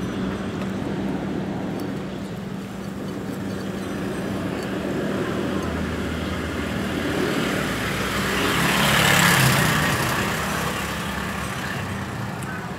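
Road traffic with a steady low hum, one vehicle passing close by, getting louder to a peak about nine seconds in and then fading.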